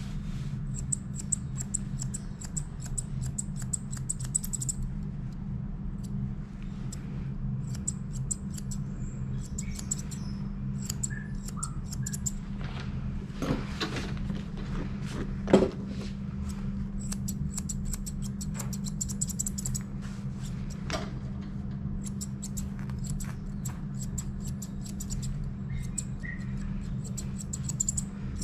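Grooming shears snipping the fur on a dog's feet in quick runs of cuts, over a steady low hum. A single sharp knock about fifteen seconds in.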